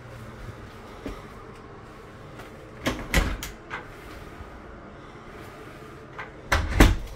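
Interior doors being handled: two clusters of knocks and rattles, about three seconds in and again near the end, the second louder.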